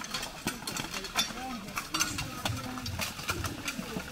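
Staged medieval melee: a rapid, irregular clatter of wooden polearm shafts and steel plate armour knocking together as armoured men push into each other, with men shouting.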